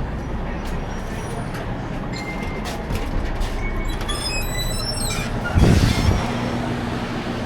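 Semi truck's diesel engine running steadily, with short high squeaks about halfway through and a brief loud low rush about five and a half seconds in.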